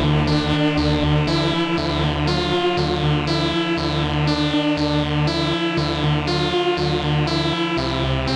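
Dreadbox Erebus v3 analog synthesizer playing a short repeating sequence, about two notes a second, each note's brightness falling quickly as the filter closes.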